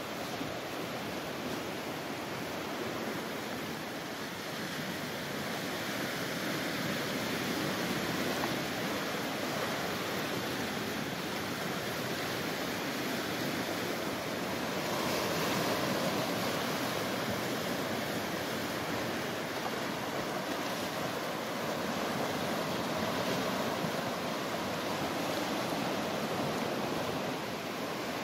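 Sea surf washing and breaking over a rocky shore: a steady rush of water that swells and eases a few times.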